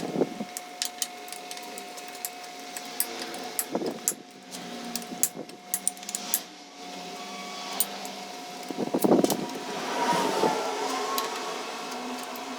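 Scattered metal clicks and clinks of hand tools working on the 8 mm hex bolts of a motorcycle's engine side cover, over a steady faint workshop hum, with a louder burst of clatter about nine seconds in.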